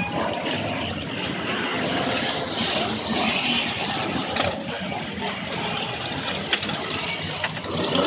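Vehicles running in a busy background of steady noise, with a couple of sharp clicks, one about four seconds in and one near the end.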